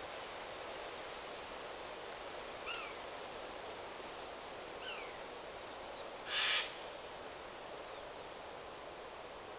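Wind rustling steadily through forest trees, with a few faint, short, high bird chirps and one louder, harsh bird call lasting about half a second, about six seconds in.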